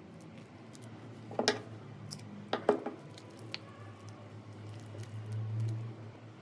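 Slime being squished and pressed by hand, giving a few sharp, wet pops: one about a second and a half in and a close pair near three seconds.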